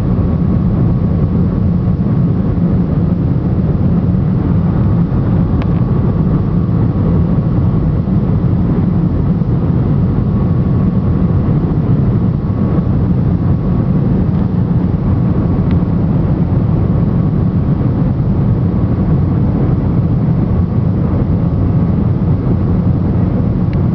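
Airliner cabin noise of the jet engines at takeoff power: a loud, steady low drone with a faint steady whine above it and a couple of faint clicks.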